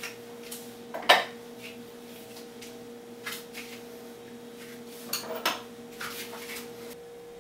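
Light clinks and knocks of dishes and cutlery, scattered irregularly, the loudest about a second in, over a steady faint hum.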